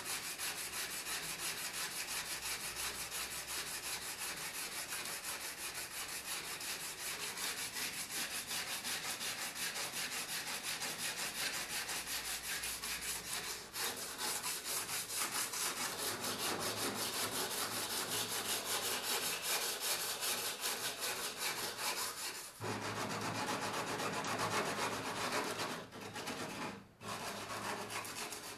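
Sandpaper on a hand sanding block rubbing back and forth over body filler on a Lada Niva's steel front wing, in quick, even strokes with a few brief pauses.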